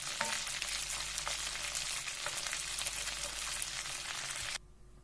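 Red fish fillets frying in a pan of butter and sunflower oil: a steady, dense sizzle full of small crackling pops. It cuts off suddenly near the end.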